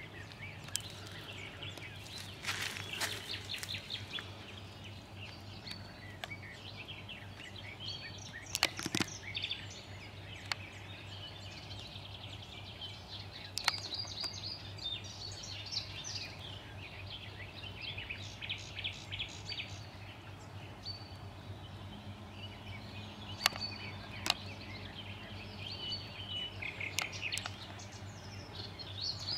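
Small songbirds chirping and singing in a steady stream of short phrases, over a steady low hum, with a few sharp clicks.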